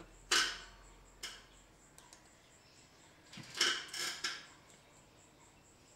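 Sound effects of an animated TV-channel logo ident: a sharp hit about a third of a second in, a fainter one a second later, then a quick cluster of three or four hits near the middle.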